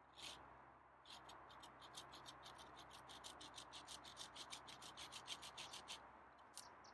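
A bare bowsaw blade, held in the hands without a frame, sawing through a green branch: quick rasping strokes, several a second, starting about a second in and stopping near the end.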